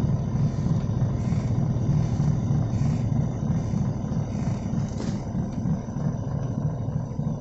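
Sailboat's inboard engine running steadily under way, a low rumble, with a short click about five seconds in.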